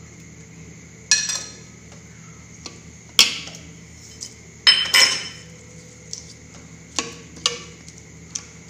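Metal spoon clinking against a stainless steel mixing bowl as chopped vegetables are stirred into a runny batter: about half a dozen sharp, ringing clinks at uneven intervals, with a few lighter taps between them.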